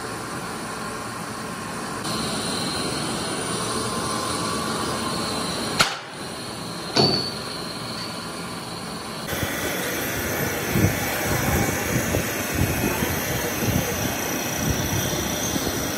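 Old metal lathe running steadily while turning steel kingpin stock. About six and seven seconds in come two sharp metallic clanks of steel parts, the second ringing briefly. From about nine seconds the machine runs rougher, with rapid irregular knocking.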